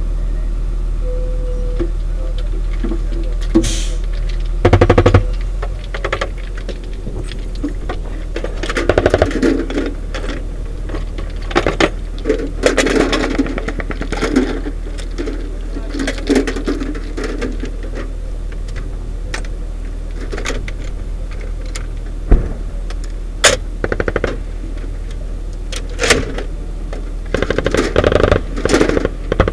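Metallic clatter and sharp clicks of a belt of linked 40 mm grenades being handled and loaded into an MK-19 automatic grenade launcher, over the steady hum of the armoured vehicle's idling engine. A brief dense rattle comes about five seconds in.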